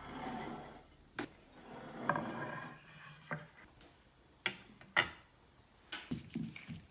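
Close handling noises: two stretches of rubbing or scraping, with about half a dozen sharp knocks at irregular intervals, the loudest two near the middle.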